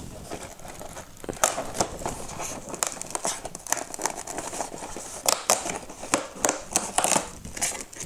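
Cardboard advent-calendar door being pried and torn open by hand: irregular crinkling and scraping of paperboard broken by many small sharp snaps and clicks, with a small box being slid out of the compartment near the end.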